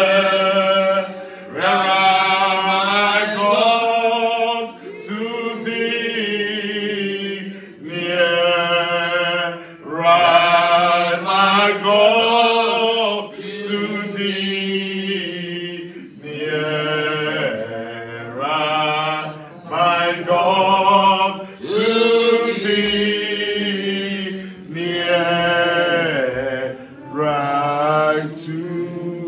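A man's voice leading a hymn, sung in phrases of one to two seconds with short breaks between them.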